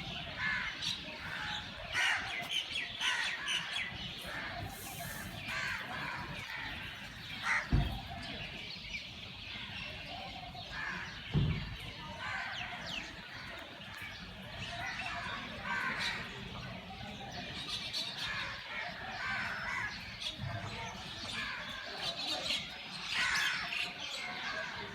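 Many birds chirping and calling continuously, with two brief low thumps about eight and eleven seconds in.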